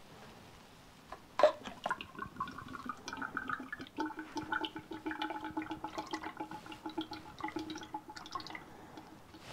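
Old fork oil draining from an upturned Triumph 675 upside-down fork tube into a plastic measuring jug: a sudden splash about a second and a half in, then a steady pouring stream.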